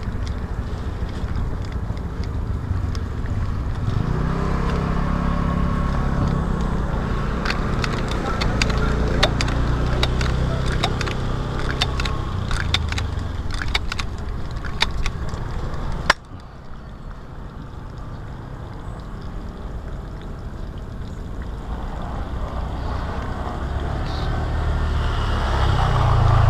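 A motor vehicle engine running close by, building up and holding for several seconds, with scattered sharp clicks over it. It cuts off suddenly about two-thirds of the way through, then an engine builds up again near the end.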